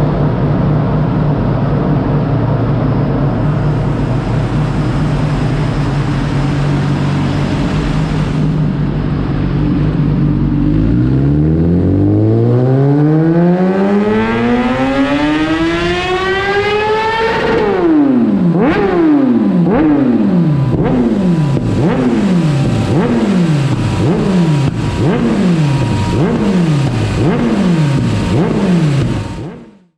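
Kawasaki ZX-10R inline-four sport-bike engine through a K67 carbon-fibre slip-on exhaust with the catalytic converter removed. It idles steadily, is revved in one long smooth climb to high revs about eleven seconds in, and drops back, then gets about a dozen quick throttle blips, roughly one a second. The sound cuts off abruptly near the end.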